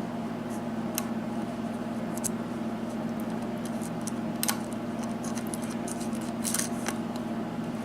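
Lock pick working the pins of a six-pin US Lock pin-tumbler cylinder under light tension: scattered faint metallic clicks and scrapes, a handful of them, over a steady low hum.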